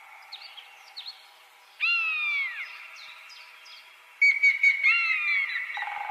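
Birds calling: two long falling whistled calls, about two seconds in and again near five seconds, among short repeated chirps.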